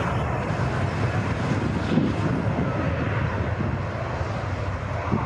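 Jet airliner's engines running, a steady rumble and rush of noise.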